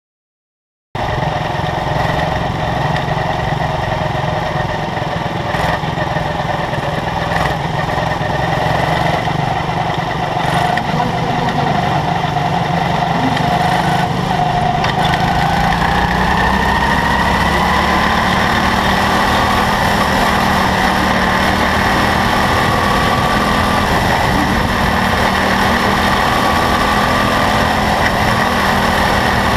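Quarter midget race car's small single-cylinder engine running steadily at speed, heard from on board the car. It cuts in suddenly about a second in, and its pitch creeps slightly higher over the laps.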